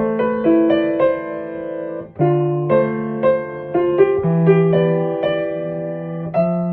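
Background piano music: a gentle melody of struck notes over a steady bass note, with a brief pause about two seconds in.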